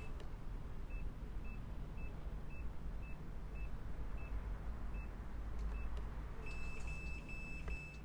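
Digital door lock keypad beeping as its buttons are pressed: about ten short beeps at the same pitch, each press a separate beep, then a longer tone with a few quick breaks from about six and a half seconds in.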